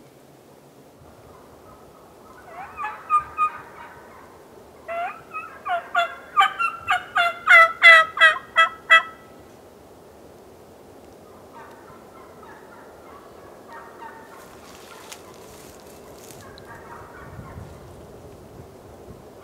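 Turkey yelping: a short run of three yelps, then a longer, louder series of about a dozen evenly spaced yelps, then fainter yelps near the end.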